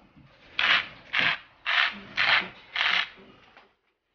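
A cardboard pasta box shaken over the pot, the last dry rotini rattling and sliding inside: five quick rattles, about two a second, fading out near the end.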